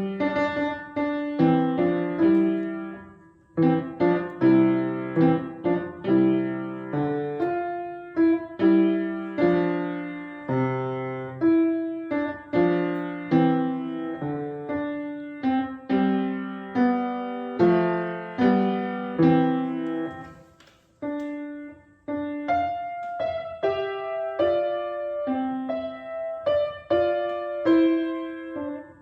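Solo piano heard over a video call, a piece played note by note in phrases, pausing briefly twice, about three and a half seconds in and again near twenty-one seconds.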